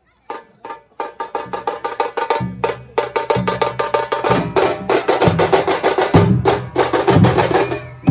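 Dhol tasha drumming ensemble striking up: a few sharp strikes after a moment's pause, then a fast, dense drum rhythm, with deep dhol beats joining in about a second and a half in.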